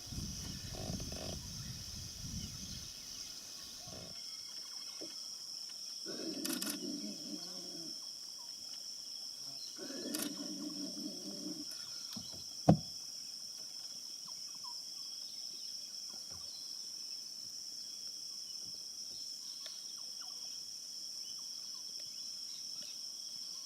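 Great-billed heron giving deep, dog-like barking calls, three bouts spaced a few seconds apart. A steady high-pitched whine runs underneath, and a single sharp click comes about halfway through.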